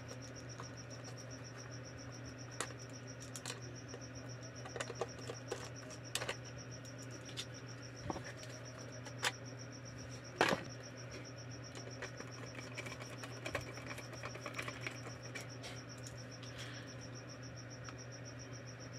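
Scattered small clicks and taps of hands and a screwdriver working on a plastic emergency-light housing and its circuit board, the loudest knock about halfway through. Underneath are a steady low hum and the continuous, evenly pulsing high chirping of crickets.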